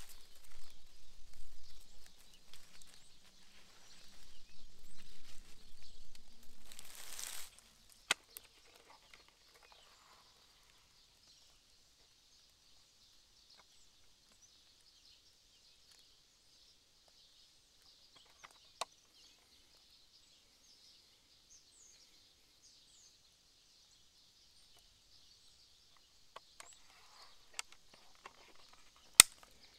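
Rustling and handling noise for about the first seven seconds, then faint forest ambience with distant birds chirping, broken by a few sharp clicks.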